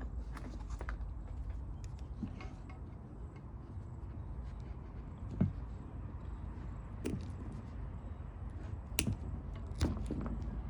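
Scattered light clicks and taps from handling a lawn mower recoil starter while a knot is tied in its new pull cord, over a steady low background rumble.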